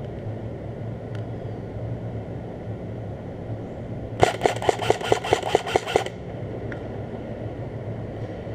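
Airsoft gun firing one rapid burst of about a dozen shots, lasting about two seconds, starting a little after the middle, over a steady low background rumble.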